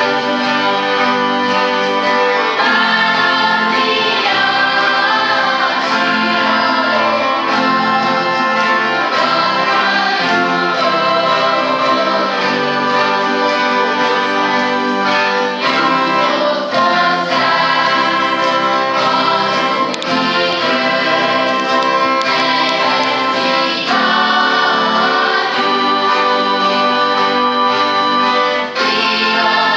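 Children's choir singing a song together, accompanied by acoustic guitars and violins.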